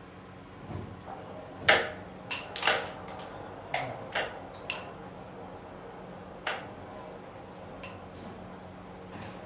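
Carrom striker and wooden carrom men clacking on the board: a run of sharp clicks, about eight in five seconds, the loudest near two seconds in.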